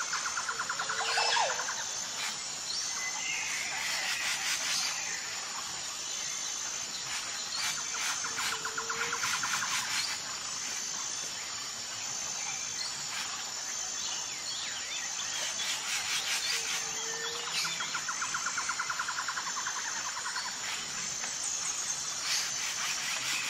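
Outdoor nature ambience: birds chirping and trilling over a steady high insect whine, with the same pattern of calls coming round about every eight seconds.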